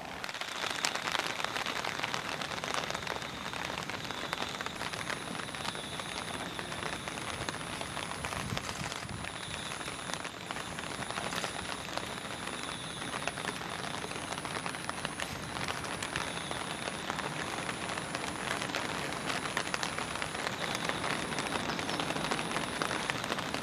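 Steady rain falling, a dense even hiss of countless fine drop ticks.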